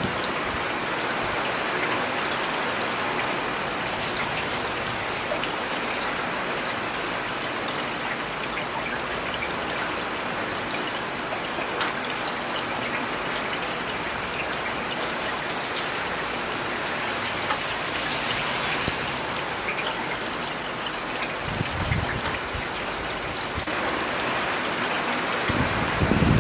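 Steady rain falling in a city, an even hiss with the patter of individual drops. Two short low rumbles come through, about 21 seconds in and again near the end.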